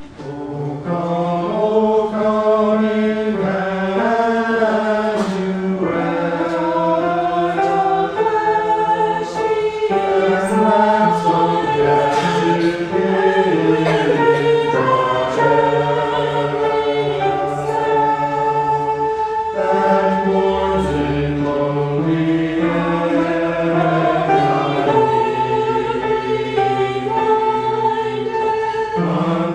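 A choir singing in parts, with long held chords that change every second or two.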